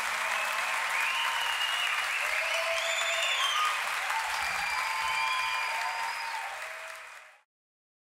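Concert audience applauding and cheering, with shouts and whistles over the clapping. It fades out about seven seconds in and then cuts to silence.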